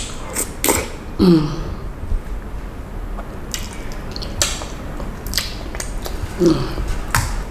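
Wet mouth sounds of eating soft amala with ewedu and gbegiri soup by hand: squishy smacks and chews scattered through, with a short falling hum about a second in and again near the end.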